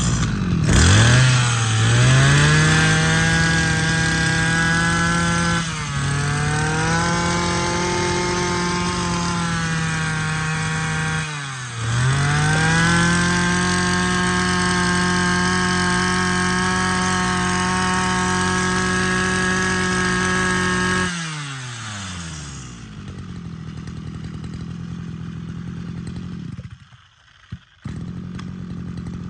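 Small petrol brush-cutter engine starting at once, revving up and held at high revs. The throttle is eased off and reopened twice, so the pitch dips and climbs back. After about twenty seconds it drops to a quieter idle, with a brief break near the end.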